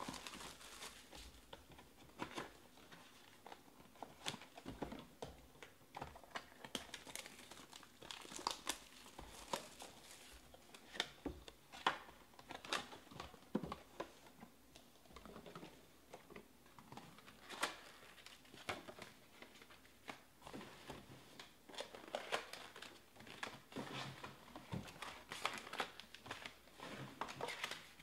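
Plastic shrink wrap crinkling and tearing as it is pulled off sealed Topps Finest trading-card boxes, with scattered sharp crackles and light knocks as the cardboard boxes are handled and stacked.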